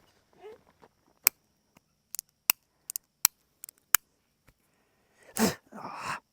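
Dueling pistol being handled: about ten sharp clicks, some in quick pairs, spread over a few seconds, the sort of click a mechanism makes when it fails to fire. A louder, longer rustling sound follows near the end.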